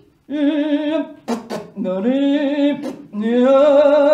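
A voice singing a wordless tune in three long held notes with a slight waver, the later notes sliding up into pitch. A couple of short clicks fall between the first and second notes.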